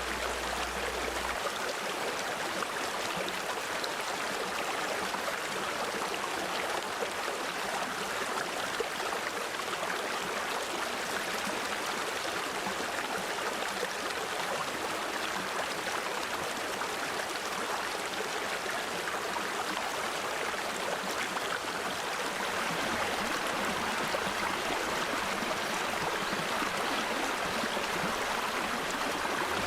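Mountain valley stream flowing steadily over rocks: an even, continuous rush of water.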